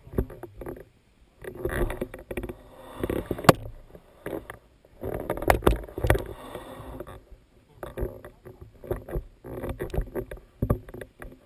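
Drift trike coasting down an asphalt road: irregular bursts of rushing, scraping noise as its hard plastic rear wheels roll and slide, mixed with wind on the microphone. Many sharp knocks and rattles run through it.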